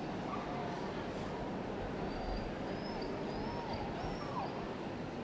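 Steady hubbub of a large indoor show hall: a crowd chattering in the background, with a few faint high squeaks about two to four seconds in.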